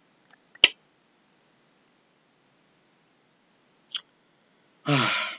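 Two sharp clicks of a computer mouse, a loud one about half a second in and a fainter one around four seconds, with near quiet between. Near the end comes a brief vocal sound from a man, not a word.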